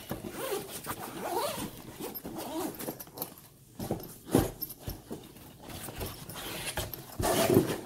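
The zipper of a Bulldog soft nylon gun carry bag being pulled open in a run of short scraping strokes. The bag is handled, with a couple of knocks about halfway and near the end.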